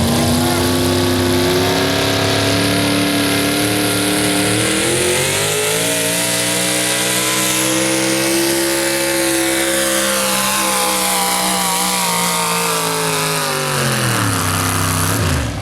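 Pulling truck's engine at high revs under load during a sled pull, loud throughout. Its pitch climbs about five seconds in, holds high, then falls away steeply near the end.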